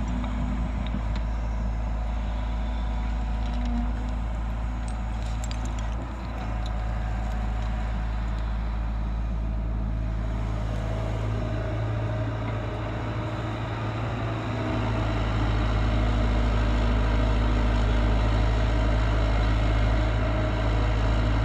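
Caterpillar 312C L tracked excavator's diesel engine running steadily as its bucket digs a trench, with a few light clinks about a quarter of the way in, and the engine growing louder about two-thirds of the way through.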